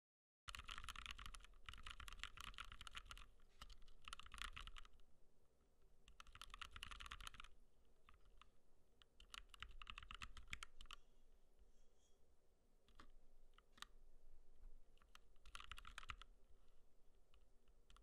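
Typing on a 40% mechanical keyboard with Gateron Yellow linear switches and PBT keycaps: fast runs of keystrokes lasting a few seconds, with scattered single key presses between.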